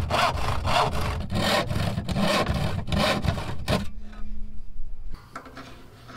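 Handsaw cutting through an old plywood shelf with quick, even back-and-forth strokes, stopping abruptly about four seconds in, followed by a few faint knocks.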